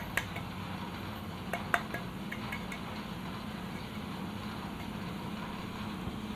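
Steel grinder jar clinking against a steel plate as ground spice mix is tapped out of it. A few sharp clinks come in the first two seconds, the loudest a pair about one and a half seconds in, then softer taps, over a steady low background hum.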